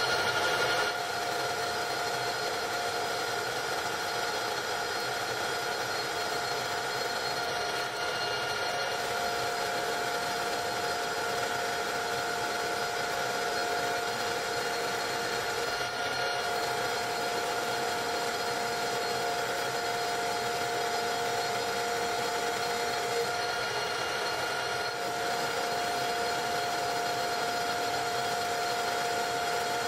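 Metal lathe turning a steel bar: a steady mechanical whine that holds one pitch, with no break.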